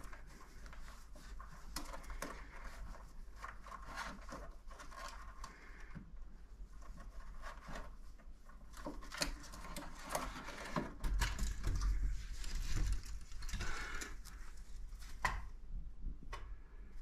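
Scuffling, rustling and quick taps as a green-cheeked conure tussles and pecks at a hand-held budgie figure, its beak and feet scraping on the wooden shelf, with a few heavier bumps about halfway through.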